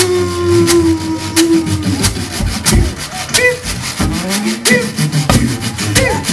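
Acoustic jug band playing banjo, guitars and washboard. A long held note slides slowly down in pitch and stops about two seconds in, then a rhythmic scraping and clicking washboard comes forward over plucked strings.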